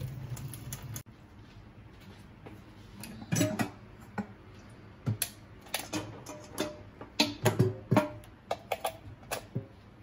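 Kitchen tap running into a stainless-steel sink, cut off abruptly about a second in. Then a scattered run of light clicks and knocks, some with a short ringing tone.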